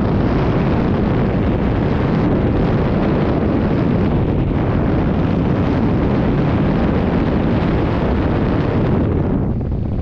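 Wind noise from the airflow of a paraglider in flight buffeting an action camera's microphone: a loud, steady rushing, easing slightly near the end.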